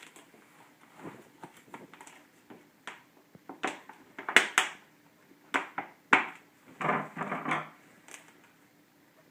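Duct tape being pulled off the roll and pressed around plastic soda bottles: a string of short rips and crinkles, the loudest about four and a half seconds in.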